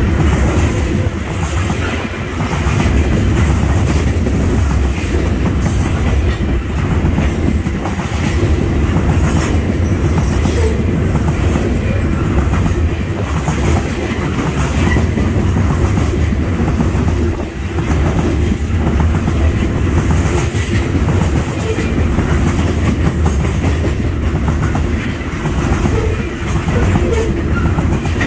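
Norfolk Southern coal train's coal cars rolling past close by: a steady, loud rumble, with the wheels clicking over rail joints in a repeating rhythm.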